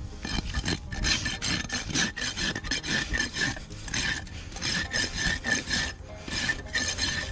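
Steel hoof knife scraping and paring the dirt-packed sole of a horse's hoof, in quick runs of short rasping strokes with brief pauses.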